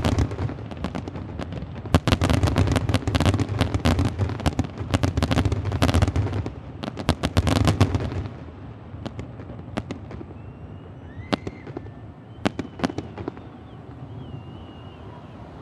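Fireworks display: a dense run of rapid bangs and crackles over a low rumble, thinning about eight seconds in to scattered single pops.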